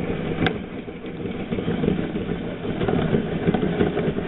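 Makita 7104L chain mortiser running, its motor and cutting chain going steadily with a dense, irregular rattle of clicks.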